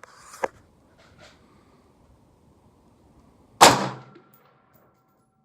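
A single shot from a Daniel Defense Mk18 AR pistol firing 5.56 ammunition: one sharp crack about three and a half seconds in that dies away within about half a second. A softer click comes shortly after the start.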